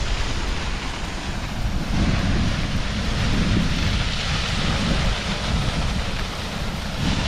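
Waterfall rushing in a steady roar of white noise, with wind buffeting the microphone in a gusty low rumble.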